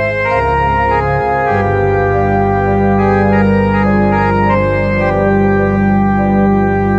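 Organ playing slow sustained chords, with the bass notes changing about half a second and a second and a half in.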